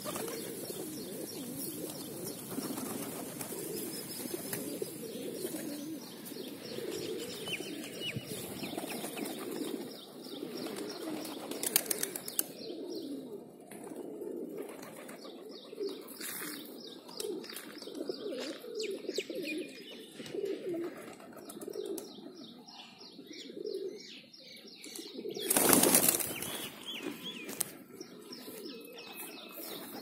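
A flock of feral pigeons cooing steadily while feeding, with a loud rush of flapping wings about three-quarters of the way through.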